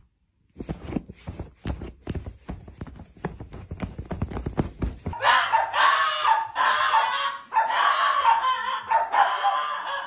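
A rapid run of short, low thumps, then, about five seconds in, a dog barking and yapping loudly.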